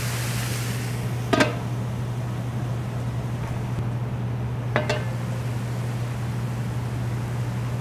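Two short, sharp metal clinks about three and a half seconds apart, like a utensil striking a cooking pan, over a steady low hum.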